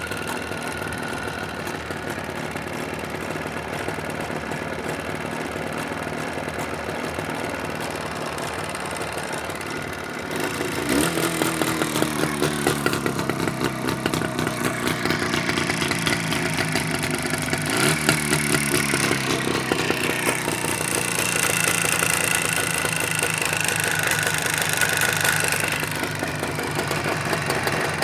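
Jawa 638 motorcycle's two-stroke twin-cylinder engine idling, then revved up and down several times from about ten seconds in, running louder. The owner hears a knock in the left cylinder.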